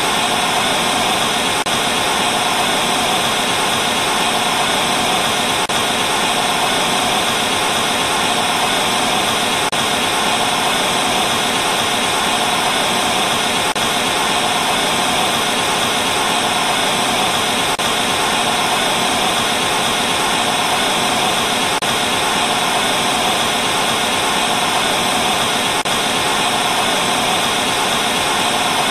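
TV static: a steady, unbroken hiss of no-signal noise, strongest in the middle and upper-middle range.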